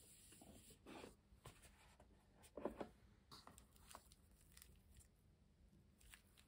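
Faint handling sounds of a cardboard gift box being opened: soft scrapes and taps as the lid comes off, the strongest about two and a half seconds in, then light rustling as a cloth elf doll and plastic slime containers inside are moved.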